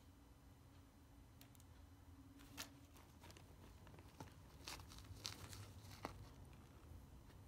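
Faint rustling and crinkling of a soft-sided nylon pet travel bag as a kitten moves about inside it, with a few sharper crinkles in the second half over a low steady hum.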